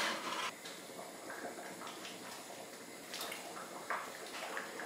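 Faint simmering of a pot of soup on the hob, with a few light clicks of a spoon against the pot.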